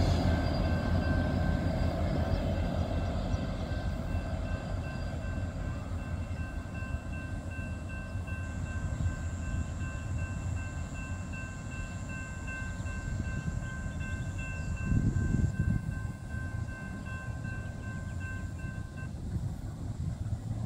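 Freight train rolling past as its rear EMD diesel locomotives go by, the rumble of the train fading as it moves away. A steady high ringing runs alongside and stops shortly before the end, with a brief louder swell of rumble about three quarters of the way through.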